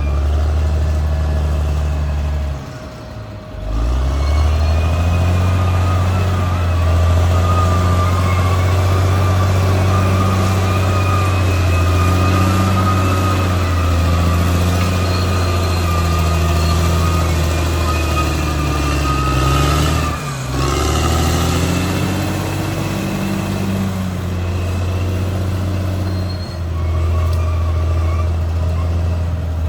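Caterpillar D6R XL bulldozer's diesel engine running hard under load, with a wavering high whine above it. The engine note drops briefly about three seconds in and again around twenty seconds, then picks up again.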